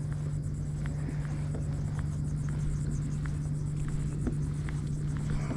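A steady low engine hum over a rumble, with a few faint scattered ticks.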